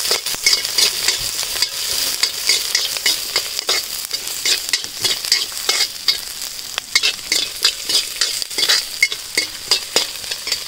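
Oil sizzling in a black kadai as sliced shallots, garlic, dried red chillies and whole spices fry, with a steady hiss. A metal ladle stirring the pan makes frequent scrapes and clicks against it.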